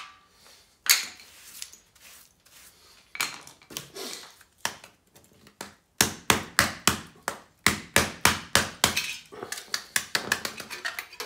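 Hammer blows on a weighted sterling silver piece, breaking up the filling inside: a few scattered strikes, then from about halfway in a run of sharp, even blows at about four a second, coming quicker near the end.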